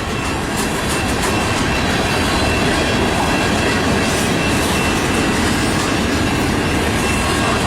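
Freight train cars rolling past on the rails: a steady loud rumble of wheels with clickety-clack, and a faint, thin, steady wheel squeal above it.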